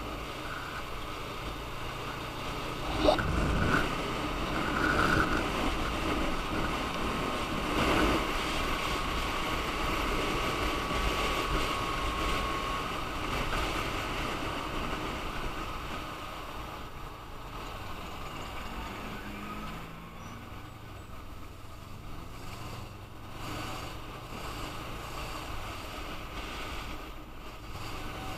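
A motorcycle riding through traffic: rushing wind and the bike's engine, with a sharp thump about three seconds in. The sound is louder while the bike is under way, then quieter in the second half as it slows among queued cars.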